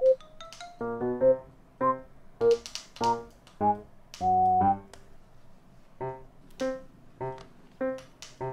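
Light, cute background music: a bouncy tune of short keyboard notes, about two a second, with a brief pause partway through.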